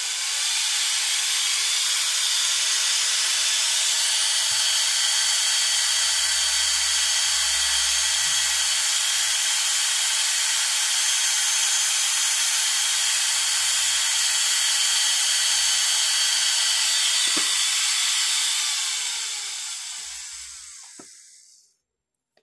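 Slow-speed dental handpiece running a size 1 Gates Glidden drill, a steady high whirring hiss, as it bores gutta-percha out of a tooth's root canal to prepare a post space. It winds down and stops near the end.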